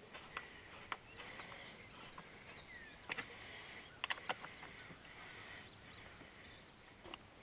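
Birds chirping in the background, with a few sharp clicks and knocks of motorcycle parts and tools being handled while the Honda CRF250L's gas tank is fitted; the knocks are the loudest sounds, a couple of them close together about four seconds in.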